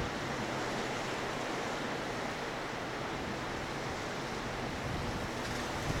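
Choppy, wind-whipped sea washing against a rocky shore: a steady rushing hiss of surf.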